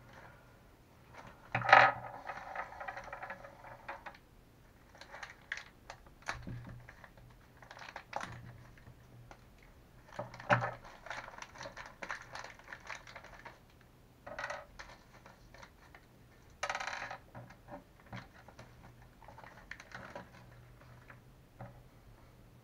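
Small hard parts of Traxxas Revo shock absorbers clicking and rattling as they are handled and fitted together by hand. The sound comes in several short bursts of clatter with a few sharp clicks, the loudest near two seconds in and again about ten and a half seconds in.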